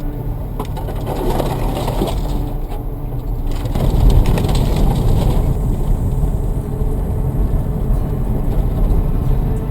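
Dacia Duster driving off-road: a steady low rumble of engine and tyres, with crunching from the tyres over the ground, getting louder about four seconds in.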